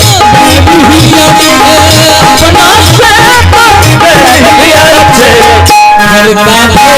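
Live bhajan music from the accompanying ensemble: a wavering melody over regular hand-drum beats and a rattle, with a brief break about six seconds in.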